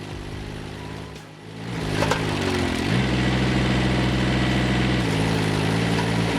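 An engine running at low speed, then revving up about two seconds in and holding at a higher speed, dipping briefly about five seconds in before picking up again.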